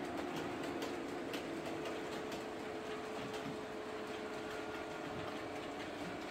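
OO gauge model electric multiple unit running along the layout's track: a steady motor hum with irregular clicks of the wheels over rail joints.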